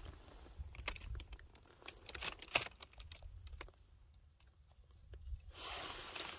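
Faint scattered clicks and crunches of loose lava rock shifting underfoot, thinning out after about three and a half seconds; a soft rushing rustle comes in about a second before the end.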